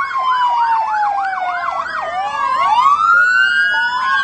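Sirens of a passing police SUV and other emergency vehicles, more than one sounding at once: a fast yelp of about three cycles a second that stops about two seconds in, over slow rising and falling wails.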